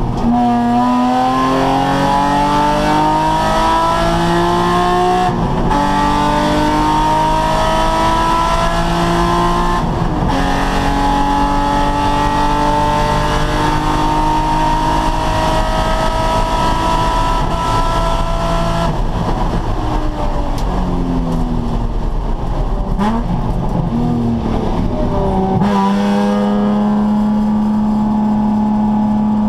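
Nissan 350Z's 3.5-litre V6 under hard acceleration, its note climbing through the gears with upshifts about five and ten seconds in. The revs drop away after about twenty seconds as the driver lifts and downshifts, then the engine holds a steady high note near the end.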